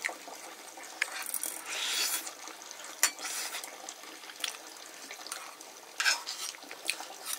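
Metal utensils clinking and scraping against pots and dishes during cooking, with about half a dozen sharp clinks scattered through and a couple of spells of hiss between them.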